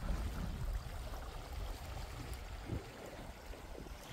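Calm sea water lapping and trickling among shoreline rocks, over a steady low rumble.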